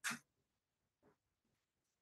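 Near silence: courtroom room tone, broken by a short sharp noise at the very start and a fainter one about a second in.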